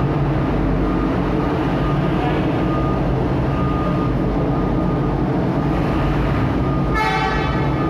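Heavy truck engines running with a steady low rumble, and a truck horn honks once near the end, held for just under a second.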